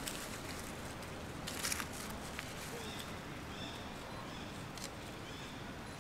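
Rustling and crackling in dry leaf litter as macaques shift about. The loudest is a brief crackle about one and a half seconds in, over a steady outdoor hiss. Faint short high chirps come in the second half.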